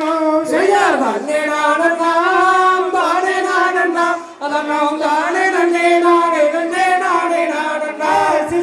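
A Tamil kummi folk song sung over loudspeakers: a voice holding long, wordless notes that wind up and down in pitch, with no break.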